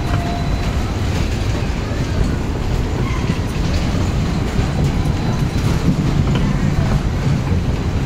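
A spinning fairground ride running, heard from a rider's seat: a steady, loud rumble of the cars rolling round on their track.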